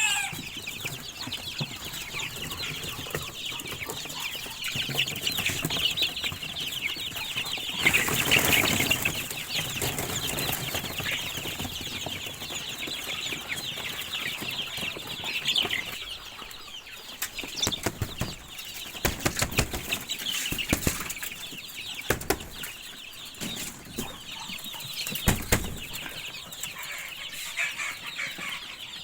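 A flock of chickens clucking and calling over one another without pause, with a loud burst of wing flapping about eight seconds in. Scattered sharp knocks come through in the second half.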